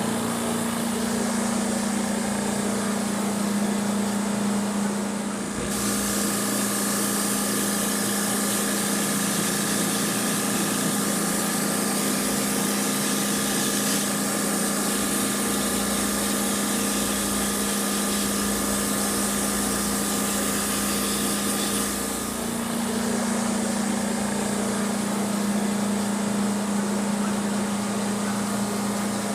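Electric high-pressure washer running with a steady motor hum, with a spraying hiss from about six seconds to about twenty-two seconds in. This is the kind of machine used to wash down a dismantled air conditioner.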